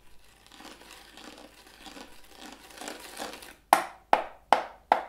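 Fingers scratching and rubbing the lid of a small box, a rough scraping that grows louder, then sharp knocks on the box with a fist begin near the end, four of them, evenly spaced at about two and a half a second.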